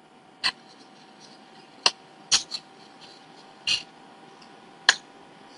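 Faint hiss of an open video-call line with a thin steady tone underneath, broken by about six short, scattered clicks or taps.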